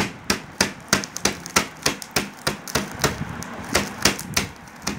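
A metal rod pounding a sealed packet of Oreo cookies on a ceramic plate, crushing the cookies inside: a run of sharp knocks, about three a second, with a short pause a little after three seconds.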